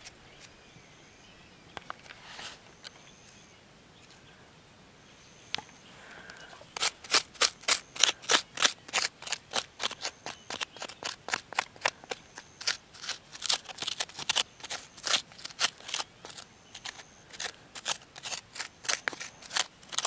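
Rhythmic crunching strokes on dry ground, about two or three a second, starting about seven seconds in after a few scattered ticks. A few short, faint high beeps sound now and then.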